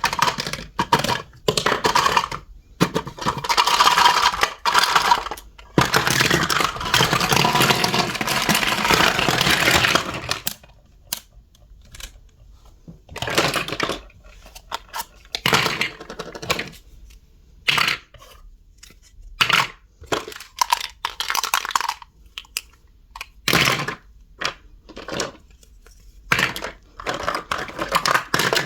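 Small toy pieces being handled: a run of sharp clicks, taps and clatter, with two longer stretches of continuous scraping or rustling noise in the first third.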